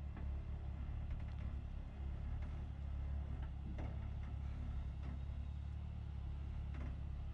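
Hummer H3 engine running at crawling speed as the truck creeps down a rock ledge: a steady low rumble with a few faint knocks.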